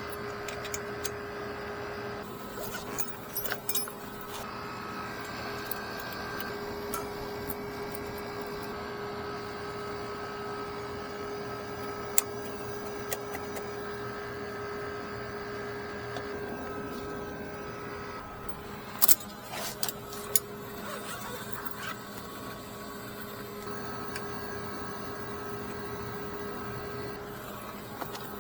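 A steady mechanical hum with a constant tone, broken by a few sharp clicks and knocks: a cluster about three to four seconds in, one near twelve seconds, and the loudest, several in a row, about nineteen to twenty seconds in.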